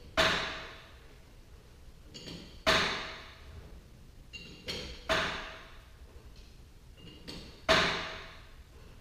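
Four sharp metal strikes about two and a half seconds apart, each ringing briefly, from a steel tool hitting the torsion spring hardware at the centre of a garage door's spring shaft. Fainter taps and clinks fall between them.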